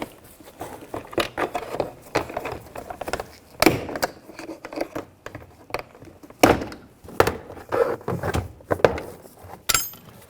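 Plastic retaining clips of a GMC Sierra 1500's inner door panel popping loose one after another as a trim tool pries the panel off, with scraping and knocks between the sharp snaps.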